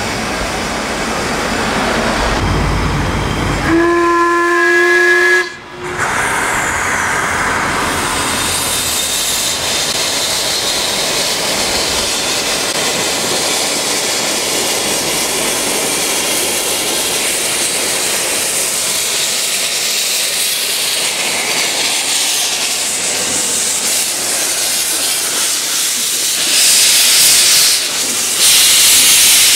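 Ffestiniog Railway Double Fairlie steam locomotive Merddin Emrys sounding its whistle once, about four seconds in, for a second and a half. It is followed by a steady loud hiss of steam venting around its cylinders at track level, which grows louder near the end.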